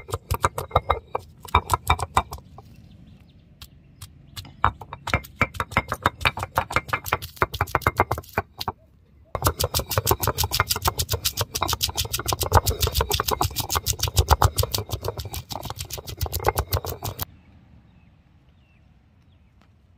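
Ginger and garlic being crushed on an ammi, a stone grinding slab, with its stone roller: a fast run of stone-on-stone strikes. The strikes break off briefly about nine seconds in, then carry on until they stop near the end.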